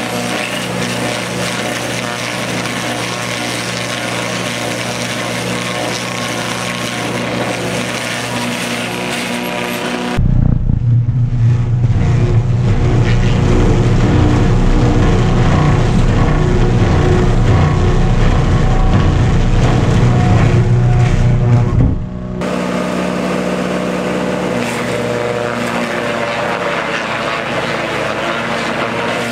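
Tractor engine running steadily under load, driving a tractor-mounted Posch post peeler as bark-covered eucalyptus logs are fed through its rotating peeling head. From about ten seconds in until about twenty-two seconds the sound is louder and deeper, then returns to the lighter, steadier running.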